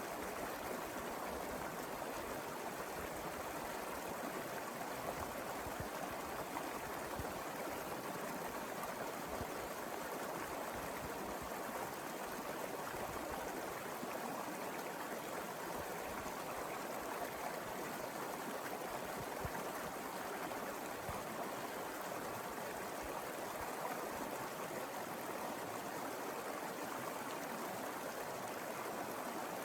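A small mountain river flowing steadily over rocks, a continuous even rush of water.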